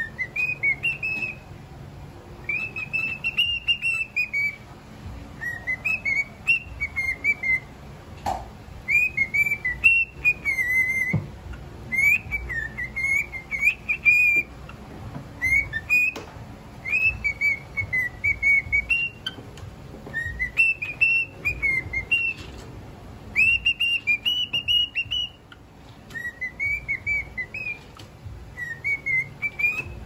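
Lutino cockatiel singing: a long run of short whistled phrases that glide up and down, one after another with brief pauses.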